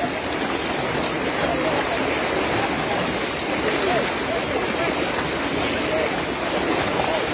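Steady rush of a fast floodwater current, with faint voices of people around.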